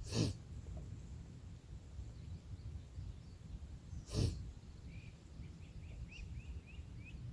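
Two short, sharp sniffs or snort-like breaths, one at the start and one about four seconds in, over a quiet outdoor background; near the end a bird gives a run of short, faint chirps.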